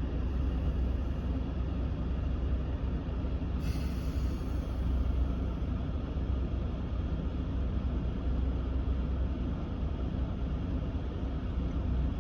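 A 2019 Ram 1500's climate-control blower running on fan speed 5, a steady rush of air from the dash vents, over the low rumble of the idling engine, heard from inside the cab. A brief click and hiss comes about three and a half seconds in.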